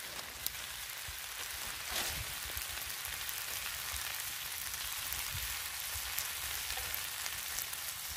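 Water spinach and grasshoppers sizzling in a frying pan over a wood fire: a steady frying hiss with a few light clicks.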